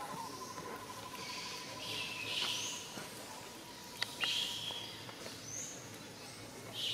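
Short high-pitched animal chirps, one every second or two, over a faint steady whine that stops about four seconds in, with one sharp click at that point.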